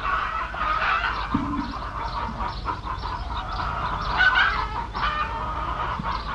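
A flock of chickens clucking, with many short calls overlapping one another.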